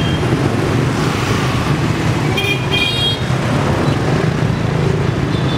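Dense street traffic of motor scooters and cars running steadily, with two short horn toots about two and a half seconds in.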